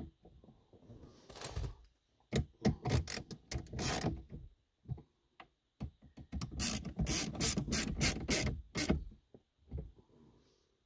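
Hand ratchet driver turning T20 Torx screws into the dash to hold the radio, clicking rapidly in several runs with short pauses between them.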